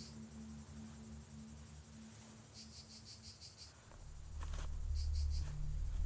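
Crickets chirping in short groups of rapid high chirps over a low steady hum. About four seconds in, a deep rumble swells up and grows louder.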